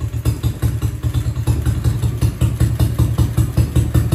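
X-Pro 125cc pit bike's single-cylinder four-stroke engine idling steadily with a fast, even beat, now running on its own after its clogged carburettor jets were cleaned.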